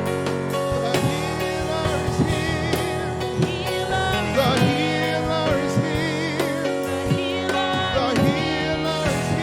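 Gospel music from a church band: sustained instrumental chords with wavering melody lines, a singing voice and occasional drum hits.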